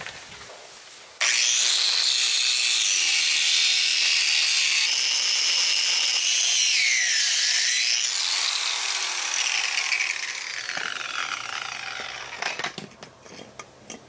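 Angle grinder with an abrasive cut-off disc cutting through the copper shell of a marine diesel's raw-water heat exchanger. A loud, high-pitched grinding whine starts suddenly about a second in, dips in pitch midway, and dies away near the end.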